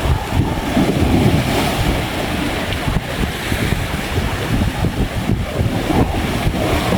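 Sea waves washing onto a beach, with strong wind buffeting the microphone.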